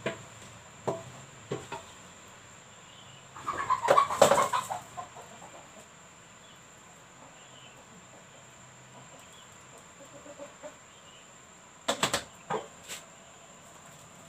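A chicken clucking and squawking in a short loud outburst about four seconds in, with faint bird chirps in the background and a few sharp knocks near the end.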